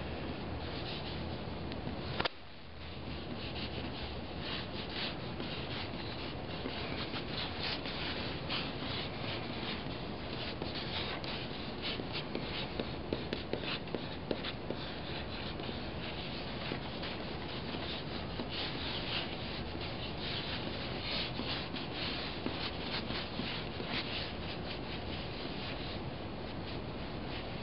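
Two pens scratching and rubbing across paper at the same time in quick, continuous strokes. A single sharp click about two seconds in.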